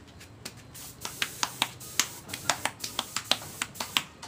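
A quick, irregular series of sharp clicks, about four or five a second, starting about a second in over a faint hiss.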